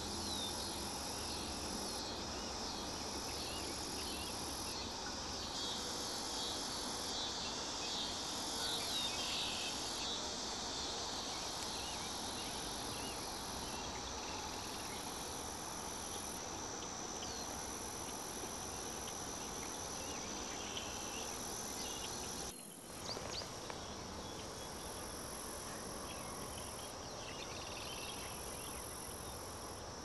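Insects trilling in a prairie chorus: a steady high trill under a higher buzz that comes and goes every couple of seconds. It cuts out briefly and suddenly about three-quarters of the way through.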